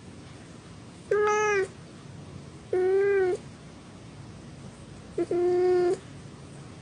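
A domestic cat meowing three times, each meow about half a second long with a steady, slightly arched pitch.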